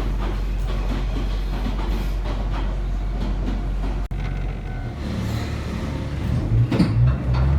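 Iyo Railway Botchan Ressha, a diesel-powered replica steam train, running along the track with a steady low rumble. About four seconds in the sound changes to a rougher low drone, with louder knocks near the end.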